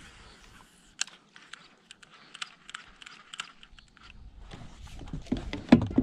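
Baitcasting reel being cranked on a lure retrieve: light, irregular clicking and ticking, with a louder thump near the end.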